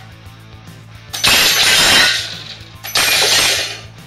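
Ceramic tile shattering as a heavy iron nail fired from a coilgun smashes into it. The crash comes twice, each about a second long, with background music underneath.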